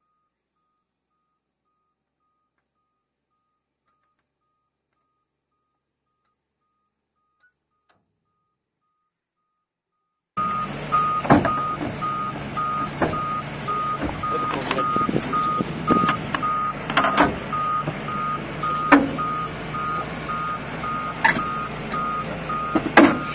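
Silence for about ten seconds, then a heavy machine's reversing alarm beeping steadily over a diesel engine running, with several sharp metal knocks and clanks as the tipped excavator is levered upright.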